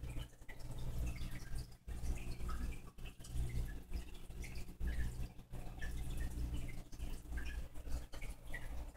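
Water trickling and dripping in a home fish tank: small, irregular drips and pops over a low steady hum.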